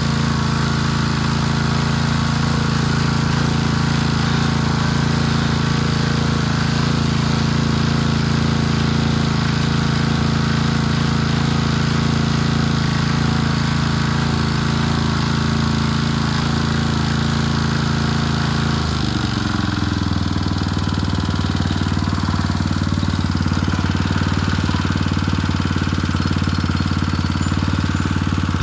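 Small Briggs & Stratton single-cylinder engine on an MTD lawn edger running steadily at speed; about two-thirds of the way through its speed drops and it settles at a lower, slower-running pitch.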